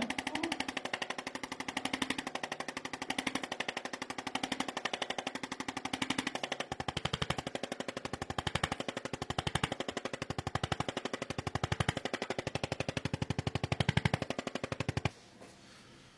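Handheld percussion massage gun running in a fast, even hammering against the body, with its loudness rising and falling every second or so. It stops abruptly near the end.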